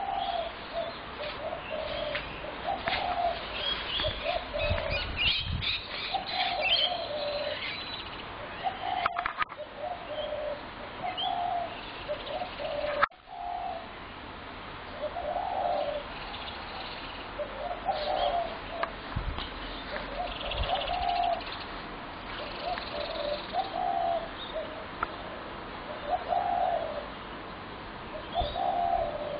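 Spotted doves cooing over and over, a low coo phrase every second or two without let-up, the chronic calling of a dove population grown large on neighbour's feed. Short higher bird chirps mix in, mostly in the first third.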